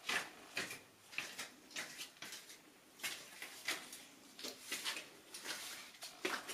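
A run of short scraping strokes at an uneven pace, about one or two a second.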